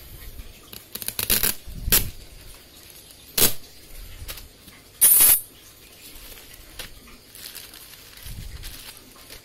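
A shipping box being unpacked by hand: irregular scrapes, knocks and crinkles of packaging, with one short loud rip about five seconds in.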